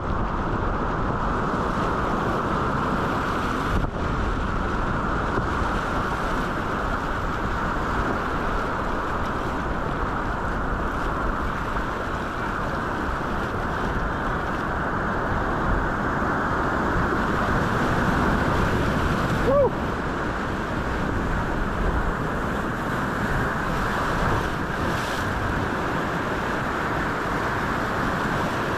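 Steady, muffled rushing of whitewater around a canoe running through a rapid.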